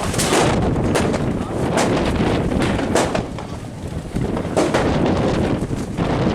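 Wind buffeting the microphone, with a few sharp cracks mixed in.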